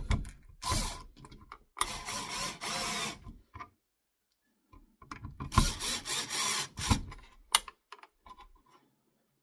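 The new switch's mounting screws being driven into the electrical box: a grinding, ratchet-like mechanical whirr in three bursts of about one second each, with small clicks between them.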